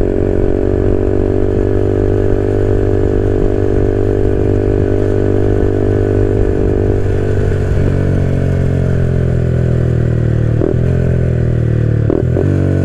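Yamaha XSR 155's single-cylinder engine through an SC Project CRT 470mm aftermarket exhaust, heard onboard at a medium speed of around 60: a steady drone at first. About seven seconds in the throttle closes, and the pitch falls slowly under engine braking, with two brief clicks near the end.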